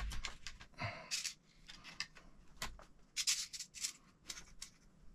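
Hands handling a 1/10 RC stadium truck kit's chassis and plastic suspension parts: a string of light clicks, taps and brief rustles, busiest about three seconds in.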